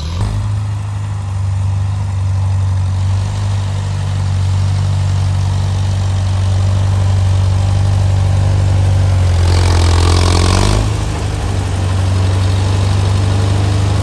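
International Harvester loader tractor's engine running steadily with a low hum as the tractor drives through tall grass, with a short change in its sound about ten seconds in.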